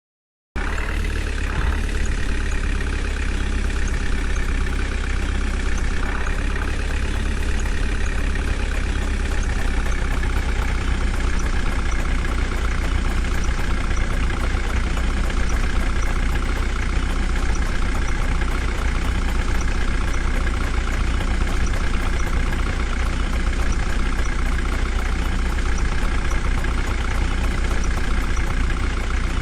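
Heavy diesel machinery running steadily at low engine speed, a continuous even engine drone with no revving.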